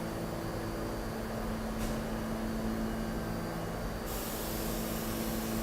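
New York subway train standing in the station: a steady electrical hum over a low rumble, with a hiss of air.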